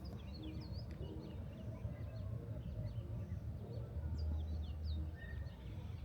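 Birds chirping in a forest, many short quick calls from more than one bird, over a low rumble that swells about four seconds in.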